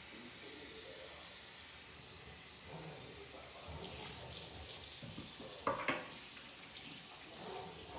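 Kitchen faucet running cold water into a sink of soap suds to rinse the bubbles away, a steady hiss of water, with two quick knocks a little past halfway.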